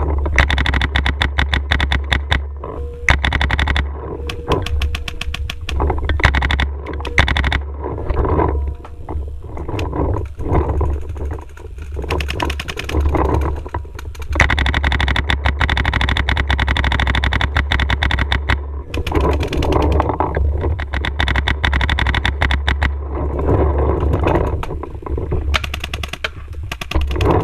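Paintball markers firing in rapid strings of shots, with brief lulls between volleys, over a steady low rumble.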